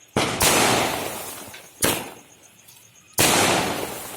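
Deepavali firecrackers bursting: four sharp, loud bangs, two close together at the start, one near the middle and one about three seconds in, each trailing off over a second or so.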